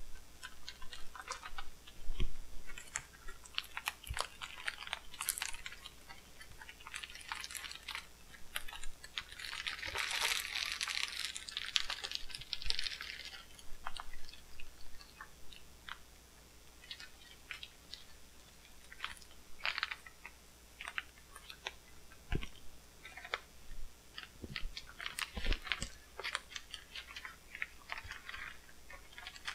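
Black plastic wrapping crinkling and rustling as it is handled and pulled off a long wrapped package, with scattered clicks and taps; the crinkling is densest for a few seconds about ten seconds in.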